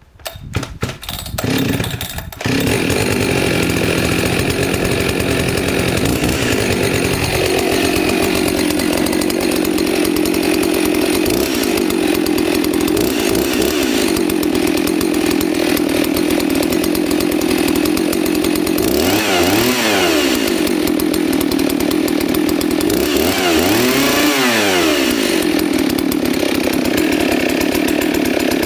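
Husqvarna 266 two-stroke chainsaw pull-started, catching after a couple of pulls and then running steadily, revved up and back down twice in the second half. The saw has a fault: it stalls when tipped on its side, which the owner suspects comes from an air leak at a crankcase oil seal.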